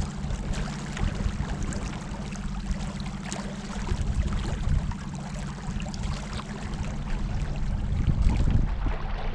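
Small boat motor running steadily with a constant low hum, under water rushing and splashing along the hull.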